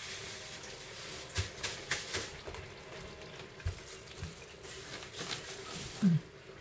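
Light kitchen handling sounds: scattered taps and clicks of utensils and dishes with a few soft knocks, and one short low falling sound about six seconds in that is the loudest moment.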